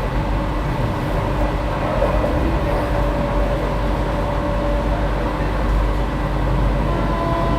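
Steady running noise inside a moving Vande Bharat Express electric train coach: an even low rumble with a few faint steady hums over it.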